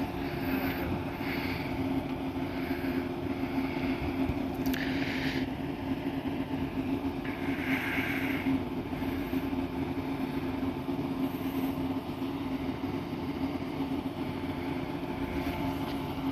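JNR 115 series electric train standing at a platform, its onboard equipment humming steadily with two steady low tones. Two brief hisses come about five and eight seconds in.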